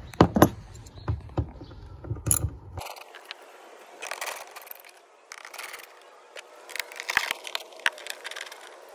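Hand socket ratchet clicking in short bursts as screws are worked loose from plastic hull panels, with a few sharp clacks of tool handling in the first second or so.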